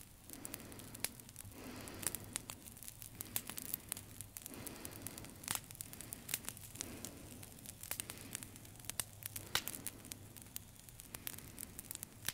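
Irregular crackling with frequent sharp clicks over a low hiss, joined by soft swells of noise every second or two.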